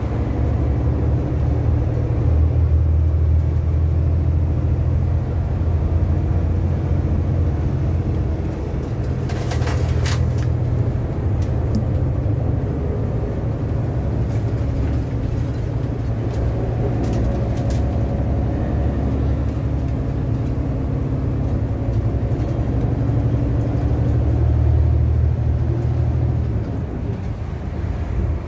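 Car driving along a road: a steady low engine and tyre rumble, with a few clicks and knocks about ten seconds in and again around seventeen seconds.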